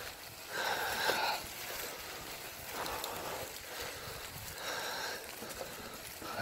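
A rider breathing hard, with a noisy exhale about every two seconds.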